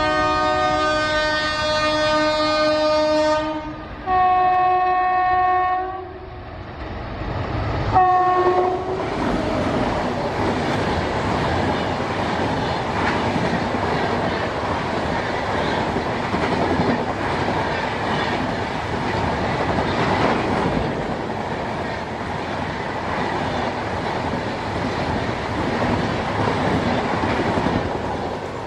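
WAP-7 electric locomotive sounding its horn: one long blast, a shorter second blast, and a brief toot about eight seconds in. Then the train's coaches pass close by, a steady rumble and clatter of wheels on the rails.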